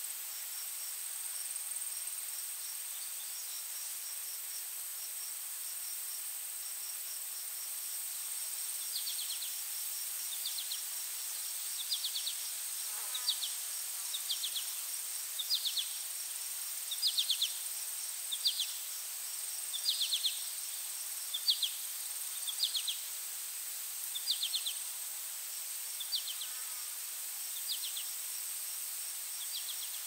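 Insects calling: a steady high-pitched drone with a fast ticking trill beneath it. From about a third of the way in, short buzzy chirps repeat roughly once a second, over a soft background hiss.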